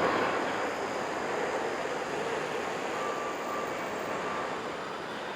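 Steady city traffic noise: a continuous even rumble and hiss of passing vehicles, with a faint thin whine for a second or so midway.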